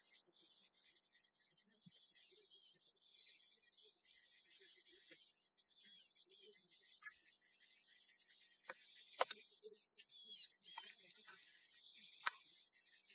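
Insects trilling in a steady, evenly pulsing high chorus. Two sharp clicks cut through it, the louder about nine seconds in and another near twelve seconds.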